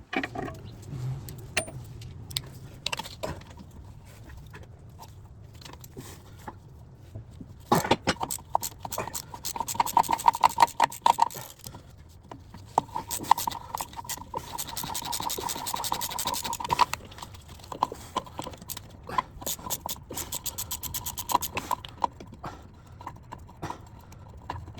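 Metal parts and hand tools handled at a workbench: repeated clinks, knocks and scrapes, with a busier stretch of rapid clinking and a ringing metallic tone in the middle.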